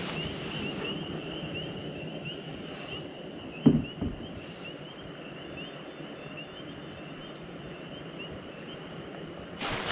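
Outdoor ambience on the water: a steady low rushing noise with a high, rapid chirping repeated about three times a second throughout, and a single knock about four seconds in.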